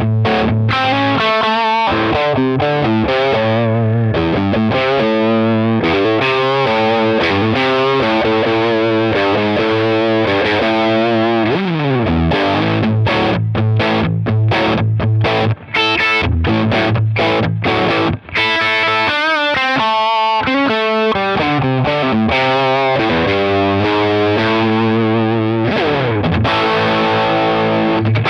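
Distorted electric guitar played through a Sound City SC20 tube combo amp with two 6V6 power tubes and a 12-inch Fane speaker: riffs and chords over a held low note, with pitch slides and two brief breaks about midway.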